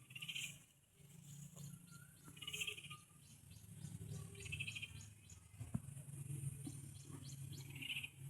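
Short, pulsing chirps that come four times, about every two seconds, over a low steady rumble.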